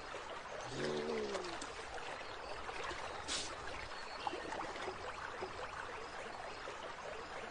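Water trickling and lapping in a steady wash with small splashy ticks. About a second in there is a short call that falls in pitch, and a brief hiss comes a little past the middle.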